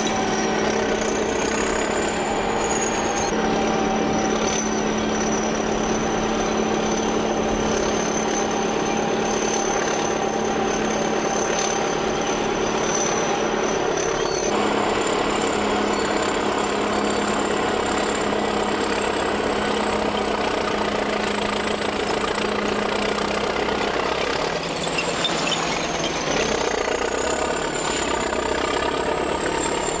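Heavy earth-moving machine's engine running steadily, with a thin high whine above it. The sound changes abruptly several times as the shots change.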